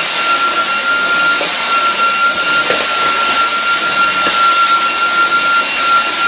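Dyson DC44 Animal cordless vacuum running steadily: a loud, even rush of airflow with a constant high whine from its motor.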